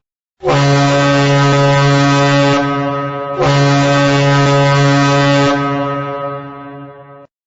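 Ship's horn sounding two long, deep blasts, the second one dying away near the end.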